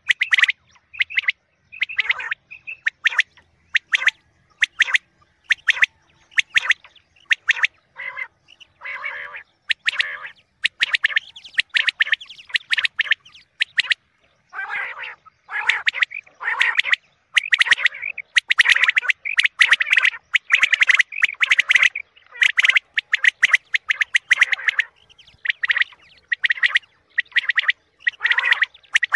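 Quail calls played as a hunting lure: loud, repeated bursts of rapid, stuttering notes with short gaps between them.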